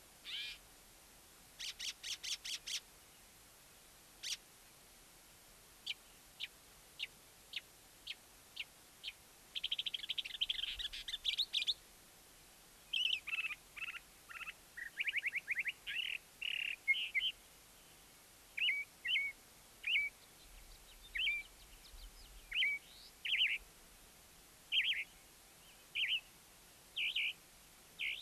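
Northern mockingbird singing a long string of varied phrases: a quick run of clicks, scattered single chips, a buzzy rattle, then short whistled notes and trills that come back again and again with short gaps between them.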